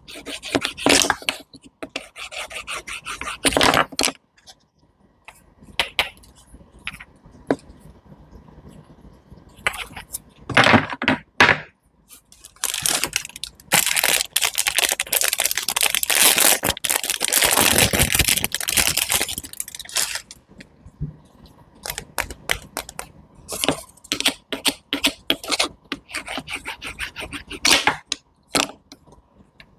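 Close-up food-prep sounds: crisp clicks and cracks of fruit being cut and handled, with a long stretch of steady scraping in the middle.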